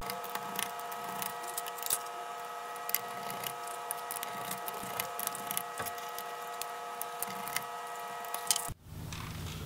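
Small Phillips screwdriver turning out tiny laptop motherboard screws: scattered faint clicks and ticks. Under them runs a steady high whine of several tones that cuts off abruptly near the end.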